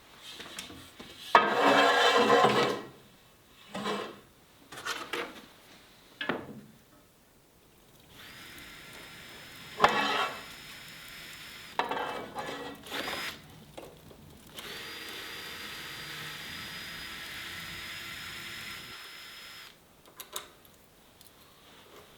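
Workshop noises: a loud rasping scrape early on and several knocks, then a small electric power tool's motor running at a steady pitch twice, the second run longer and louder, cutting off suddenly near the end.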